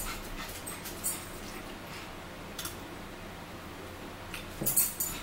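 Close-up mukbang eating sounds: chewing and lip smacking on barbecue chicken, with scattered sharp smacks and a run of them near the end.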